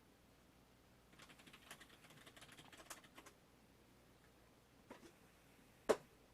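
Faint rapid patter of small ticks and rustles from a cat moving on bedding for about two seconds, then two soft clicks near the end, the second the louder.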